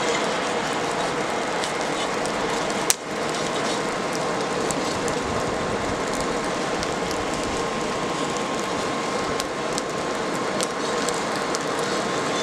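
Blower-fed forge fire: a steady rush of air with a constant motor hum and scattered crackling, and one sharp clank about three seconds in.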